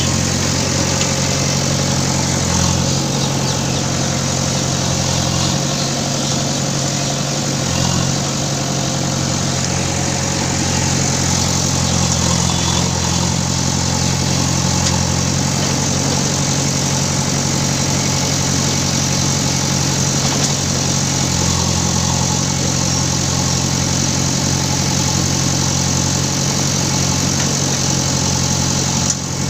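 Diesel engine of a JCB digging machine running steadily at a constant pitch.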